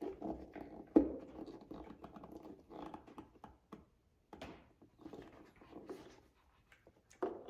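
Hand fitting a screw through a fabric door storage bag into a plastic door panel: scattered small clicks, taps and scratchy fabric rustling, with one sharper click about a second in.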